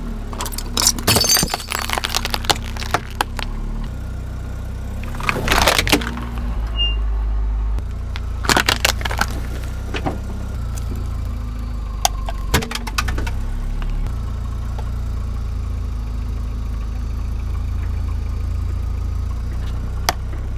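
A car's engine running with a low steady rumble while its tyre rolls over and crushes small objects: several bursts of cracking and crunching, about one to three seconds in, around five and a half seconds, around eight and a half seconds and around twelve and a half seconds, with a few lone snaps between them.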